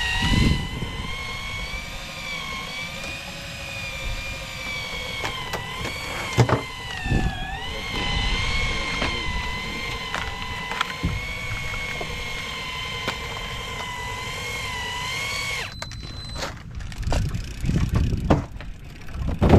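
Electric fishing reel's motor winding in line with a steady whine that wavers in pitch as the load on the line changes. It stops suddenly about 16 seconds in, as the fish reaches the boat, and knocks and thumps follow.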